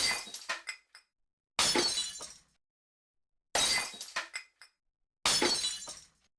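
Glass shattering four times, about two seconds apart. Each time there is a sharp crash, then falling fragments tinkling for under a second, then silence.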